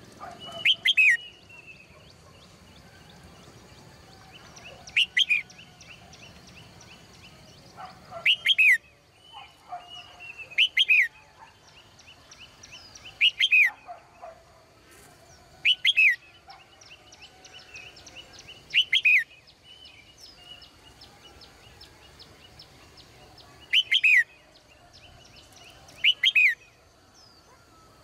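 Caged red-whiskered bulbul calling: nine short, loud phrases of quick falling whistled notes, a few seconds apart. A faint steady high-pitched whine runs underneath.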